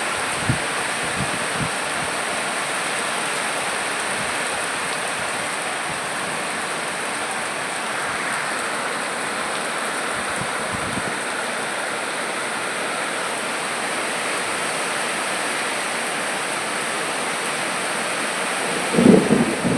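Steady heavy rain falling: a dense, even hiss. A brief louder low thump comes near the end.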